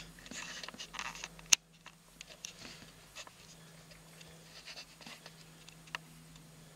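Quiet room with scattered small clicks and taps, one sharp click about a second and a half in, and a faint steady low hum.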